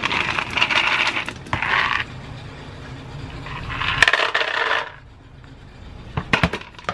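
Dry dog kibble rattling as a plastic scoop digs into a plastic container. About three and a half seconds in, the kibble is poured clattering into a dog bowl. A few sharp clicks come near the end.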